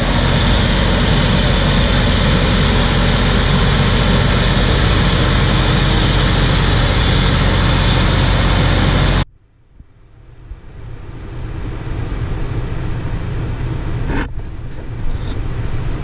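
Farm machinery engine running steadily. It cuts off abruptly about nine seconds in, then a quieter steady engine noise builds back up, with a single click about five seconds later.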